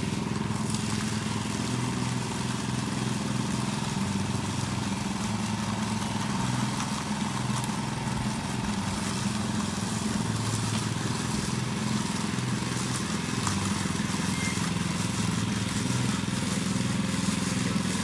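Small petrol engine of a walk-behind power trowel running steadily while its rotating blades finish fresh concrete.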